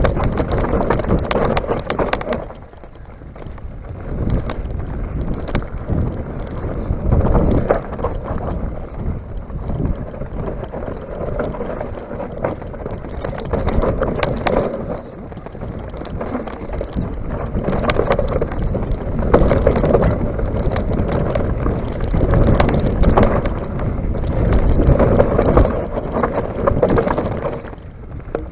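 Mountain bike running fast down a rough dirt and rock trail: tyres rumbling over gravel and stones, with frequent knocks and rattles from the bike over bumps and wind buffeting the microphone. It eases off briefly about three seconds in and again near the end.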